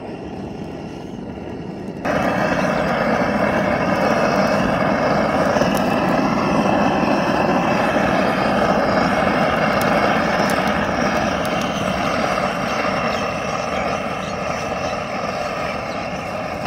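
Hand-held LPG gas burner torch running with a steady rushing flame as it singes the hair off a beef trotter. The noise gets louder from about two seconds in.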